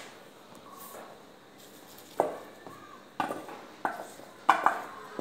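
Stainless steel bowl clinking: a series of sharp knocks, each with a short metallic ring, starting about two seconds in and coming roughly every half to one second, the loudest near the end.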